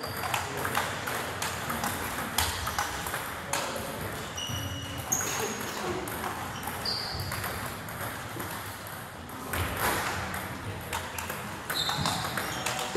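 Table tennis balls clicking off paddles and tables in quick irregular strokes, several rallies overlapping, with a few short high squeaks.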